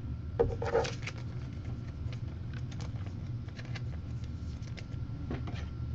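Scattered light clicks and taps of trading cards being handled and pushed into rigid plastic top loaders, over a steady low hum.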